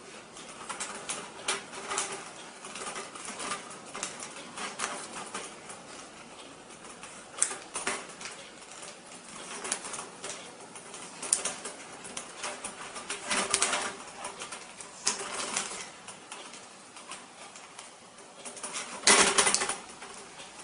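Handling noise of a coiled fish tape being tied: irregular rustling, scraping and light clicks of the tape and cable, with the loudest rustle about a second before the end.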